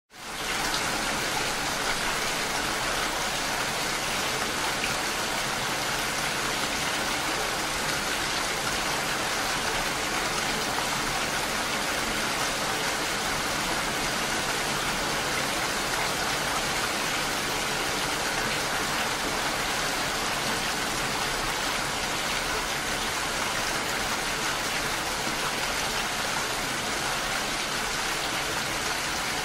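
Steady rain, an even hiss with no separate drops standing out, fading up quickly at the very start.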